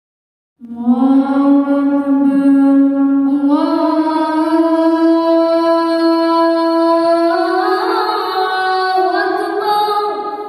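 A single voice chanting the adhan, the Islamic call to prayer, unaccompanied: one long ornamented phrase starting just under a second in, its pitch climbing in steps and fading out at the end.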